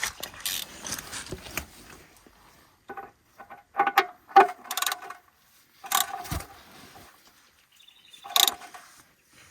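Metal objects clanking and knocking, several knocks with a short metallic ring, in irregular bursts with quiet gaps between.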